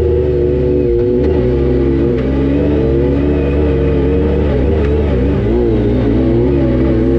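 Yamaha YXZ1000R SS side-by-side's inline three-cylinder engine running under load as it crawls up a rocky hill climb, the revs rising and falling with the throttle.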